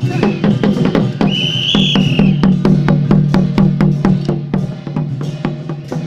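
Procession drums and percussion beating a fast, steady rhythm of about five strokes a second, with a short high-pitched tone over them about a second and a half in.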